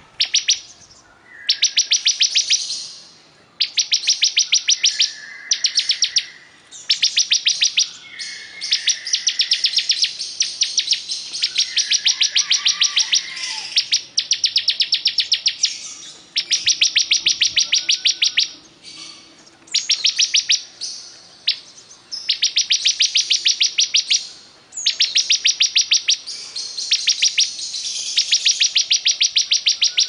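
Caged bar-winged prinia (ciblek kristal) singing nonstop in repeated phrases of very fast, high ticking notes, each phrase about a second or two long, with short pauses between them.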